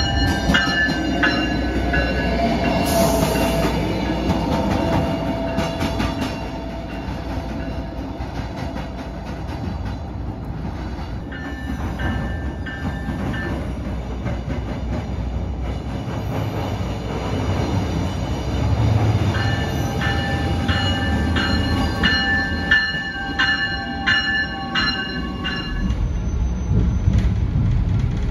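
River Line diesel light-rail railcar running on street track, with a steady rumble of engine and wheels. High ringing tones sound in the first few seconds, and a run of quick repeated bell-like strikes comes in the last third.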